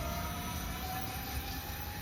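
DB class 430 S-Bahn electric multiple unit with a steady low rumble and a whine that rises slowly in pitch.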